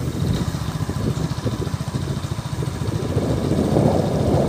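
A small engine running steadily at low revs, with a fast, even pulsing rumble.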